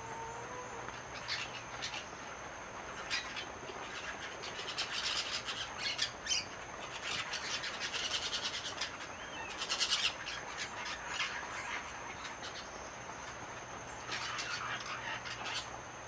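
A flock of small green parakeets calling: quick, harsh chattering squawks, busiest in the middle and again near the end.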